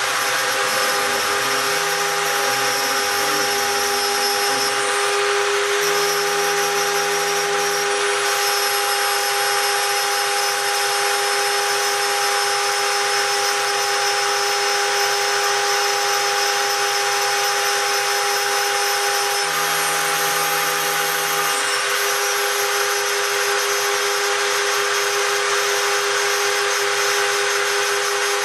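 Spindle of a homemade CNC gantry milling machine running steadily with a constant whine as it engraves brass. Lower motor tones shift in pitch during the first eight seconds and again about twenty seconds in.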